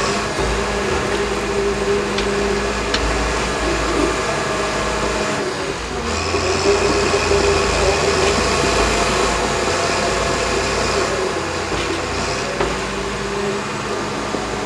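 Cat D6K dozer's six-cylinder diesel engine working under load as the blade pushes dirt and rock, a steady drone that grows louder about six seconds in.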